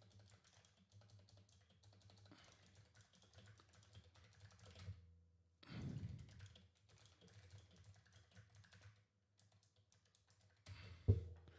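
Faint computer keyboard typing: irregular, scattered key clicks in two runs, with a short, louder low sound about six seconds in.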